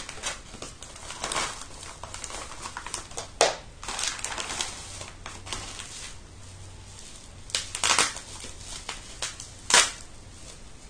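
Plastic packaging and bubble wrap crinkling and crackling as a parcel is opened by hand, with a handful of louder sharp crackles at irregular moments.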